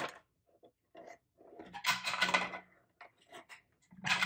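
Dry cinnamon sticks rattling inside a tipped glass jar and clicking as they drop into an empty glass carafe. There are scattered light clicks, a longer rattle about two seconds in, and a louder clatter near the end.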